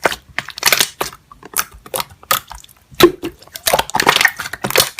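Slime being pressed and squeezed by hand, giving an irregular run of crackling crunches.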